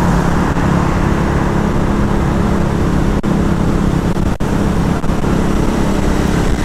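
KTM Duke motorcycle's single-cylinder engine running at a steady cruise of about 45 km/h, its hum holding an even pitch, with wind rushing over the microphone.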